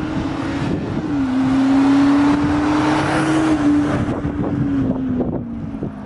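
VW Amarok with a Kufatec Sound-Booster active sound system switched on, playing an artificial V8-style engine note. The steady drone dips about a second in, rises slightly, and sinks in pitch near the end, while the driving noise swells in the middle.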